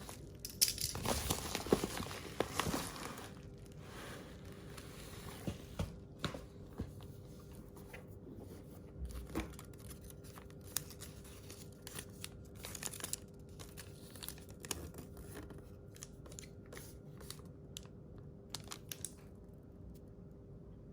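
Headphone packaging being handled and opened: dense rustling and crinkling with some tearing for the first three seconds, then scattered small rustles and clicks. A faint steady hum runs underneath.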